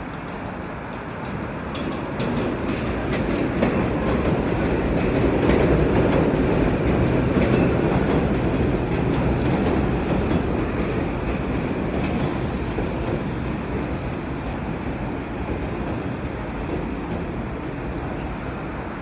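R46 subway train pulling into an elevated station. The noise swells as the cars come alongside, with the wheels clacking over rail joints, then eases off as the train slows.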